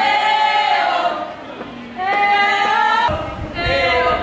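Choir-like singing: several voices holding long notes that slide from one pitch to the next.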